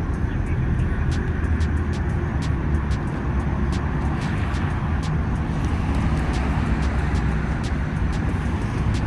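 Street traffic: a steady low rumble of vehicles, with a faint regular ticking about three times a second.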